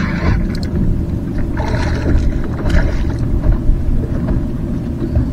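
Wind buffeting the microphone in a steady low rumble, with a few short noisy bursts in the middle.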